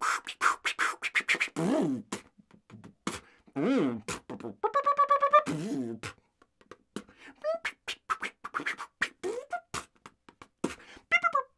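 A man beatboxing and vocalising an imitation of a weird film score: rapid mouth clicks and pops, two swooping rise-and-fall vocal glides, and a pulsing held tone about halfway through, then sparser clicks and short chirps.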